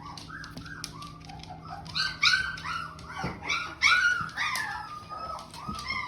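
Young shepsky puppies, about 17 days old, whining and squealing together. Many short, high squeaks overlap, growing louder and busier from about two seconds in.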